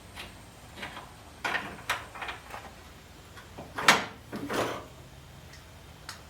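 Parts and tools being handled during an engine teardown: a scatter of light knocks and clinks, the loudest a sharp knock about four seconds in, followed by a short scrape.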